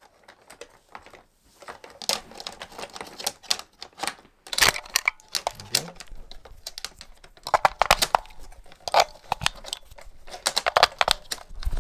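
Irregular clicks and clacks of hard plastic toy-train parts being handled and fitted: Lionel Polar Express cars and pieces set onto plastic track.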